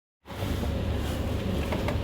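Silence, then about a quarter of a second in a steady low rumbling background noise cuts in abruptly and carries on evenly.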